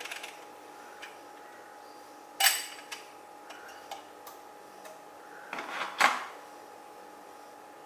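Metal espresso portafilter and its dosing funnel knocked and clinked while being handled. There are two sharp knocks that ring on briefly, one about two and a half seconds in and a louder one about six seconds in, with light clicks between.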